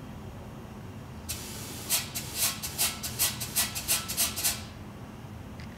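A quick run of short hisses, about three or four a second, over roughly three seconds from about a second in. They come from the valve seat machine as its spring compressor adapter presses down valve springs so the keepers can be seated.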